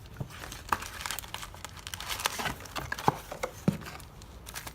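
Plastic trading-card packaging being crinkled and torn open as a Yu-Gi-Oh! booster is unwrapped: irregular crackles and snaps with no steady rhythm.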